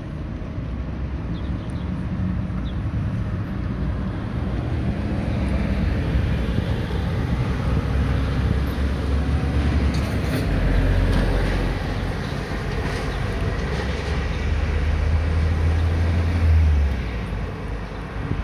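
Road traffic: cars passing on wet asphalt, a steady hiss of tyres and engines that swells to a peak about eleven seconds in. Under it runs a low rumble that stops abruptly near the end.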